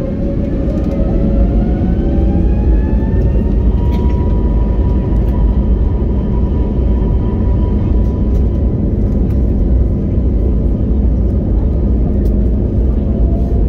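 Airbus A321neo's Pratt & Whitney PW1100G geared turbofans spooling up to takeoff power, heard from inside the cabin: a whine climbs in pitch over the first few seconds, then holds steady over a loud, continuous rumble.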